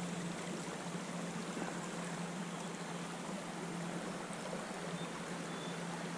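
Shallow river water running over rocks: a steady, even rush, with a steady low hum underneath.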